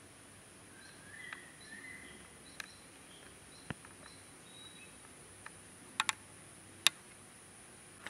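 Faint outdoor ambience: birds chirping in short repeated calls over a steady high-pitched hiss, broken by several sharp clicks, two close together about six seconds in and the loudest just before seven seconds.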